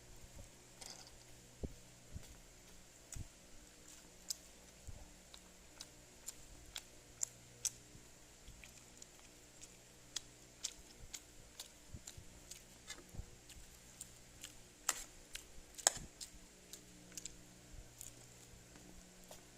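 Faint, irregular small clicks and ticks, a few louder ones near the end, over a low steady hum.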